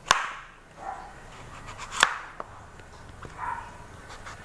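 Kitchen knife chopping through hard kalabasa squash on a cutting board: two sharp knocks as the blade hits the board, about two seconds apart, with a lighter tap just after the second.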